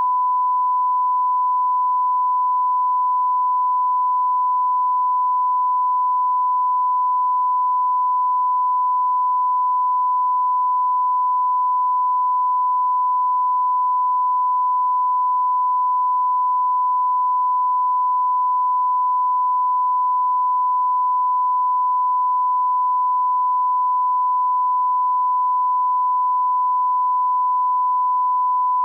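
Censor bleep: a single pure beep tone held at one pitch without a break, standing in for swearing.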